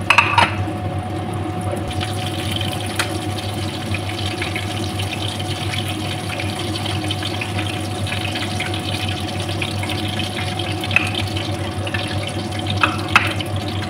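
Marinated chicken pieces frying in hot oil in an aluminium wok, a steady sizzle full of fine crackling as the chicken goes golden brown. A few sharp clicks stand out near the start, about three seconds in and near the end, over a low steady hum.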